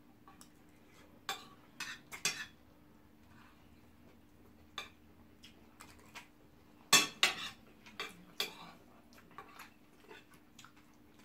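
Spoons clinking and scraping against plates of rice and stew while eating, in scattered sharp clicks, the loudest about seven seconds in.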